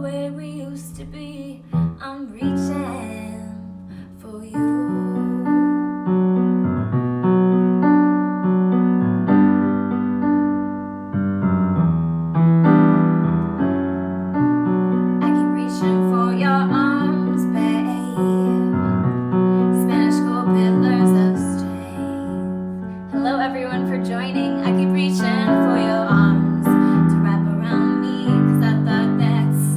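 Portable electronic keyboard played with a piano sound, a run of sustained chords. A woman's singing voice comes in about halfway through, sung live over the keyboard.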